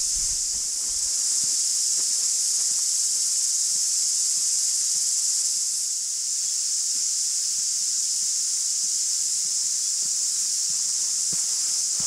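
Steady, high-pitched buzzing chorus of cicadas in the bush, unbroken throughout, with faint footsteps on a dirt track that grow more distinct near the end.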